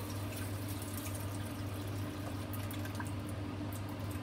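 Chicken adobo with potatoes simmering in a covered pan: soft bubbling and small spits and crackles under the glass lid, over a steady low hum.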